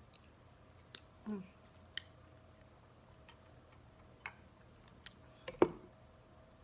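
Scattered small clicks and mouth sounds of a person eating, with a brief murmur about a second in and a sharper click near the end.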